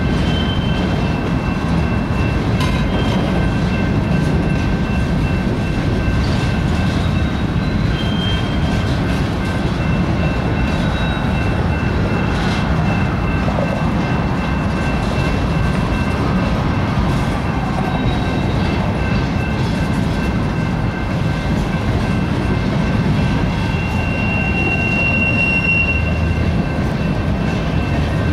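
Freight train's centerbeam flatcars rolling slowly past close by: a steady rumble of steel wheels on rail, with thin, high, steady wheel squeals over it that come and go.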